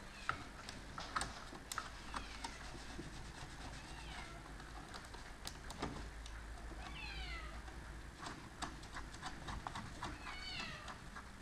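Irregular metallic clicks and taps of hands and tools at a car battery's terminal clamps as the battery is connected. Several short, high chirps that fall in pitch come in between, a few seconds apart.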